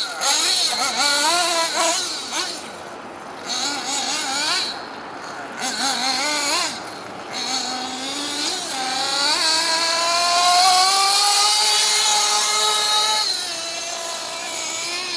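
Nitro RC buggy engine being run in on the track, its pitch rising and falling as it speeds up and slows down through the corners. It holds one long climb in pitch, held high for a few seconds, that drops away near the end.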